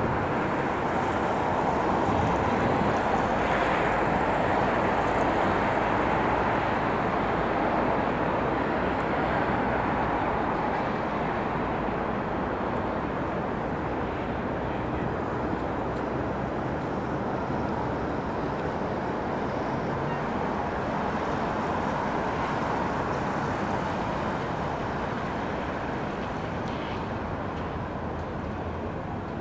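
Steady wash of distant city traffic noise, even and without distinct events, easing off slightly over the second half.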